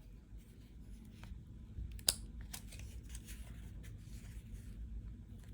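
Small clicks and light scraping of a probe food thermometer being handled, with one sharper click about two seconds in, over a steady low hum.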